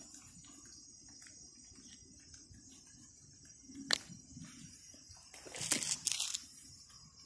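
Faint crickets chirping steadily. About four seconds in there is a sharp click, followed by a second or so of scuffing rustles.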